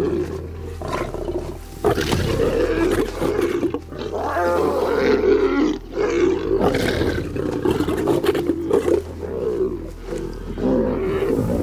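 Lions snarling and growling in a fight over a kill: a lioness attacks cubs at a carcass and they snarl back, in loud bouts broken by short pauses.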